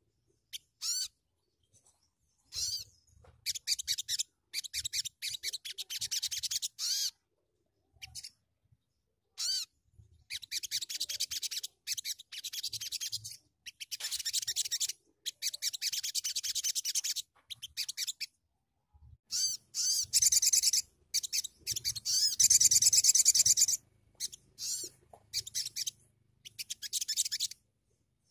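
Sunbird singing: runs of rapid, high-pitched twittering trills a second or three long, broken by short pauses and single sharp chirps, the loudest run a little past the middle.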